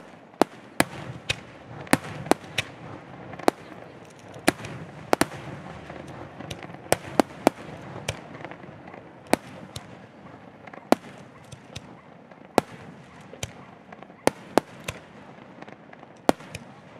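Aerial fireworks shells bursting in a quick, irregular series of sharp bangs, often more than one a second, with a continuous crackle and hiss between them.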